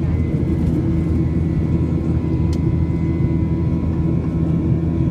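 Boeing 737-800's CFM56-7 engines at climb power after takeoff, heard inside the cabin: a steady, dense low drone with a thin, steady whine above it. There is one short tick about halfway through.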